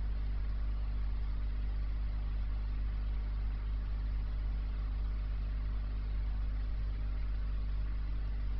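Aquarium equipment humming steadily: a low, even motor hum with a faint hiss over it, with no change in level.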